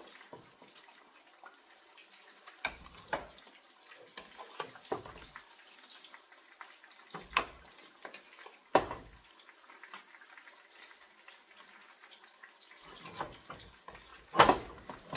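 Metal spoon scraping and knocking against a pot as stiff cooked cornmeal (cou-cou) is scooped out into a bowl: a scattering of separate knocks and scrapes, the loudest near the end.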